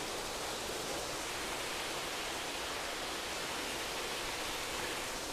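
Steady hiss and splash of water pouring from a pipe into a fish-breeding vat.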